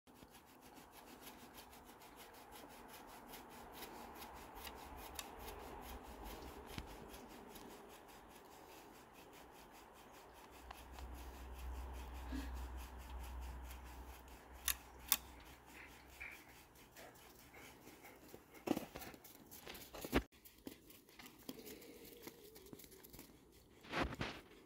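A rake scratching a horse's back: a faint, raspy rubbing of the tines through the coat, with a few sharp clicks in the second half.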